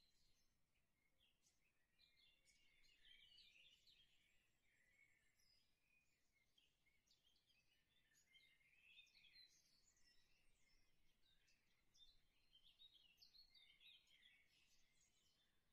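Near silence, with faint, continual chirping like small birds singing.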